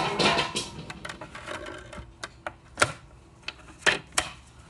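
Plastic handling clicks of a CD being set into a portable DVD player and its lid pressed shut, with a few sharp clicks in the last two seconds.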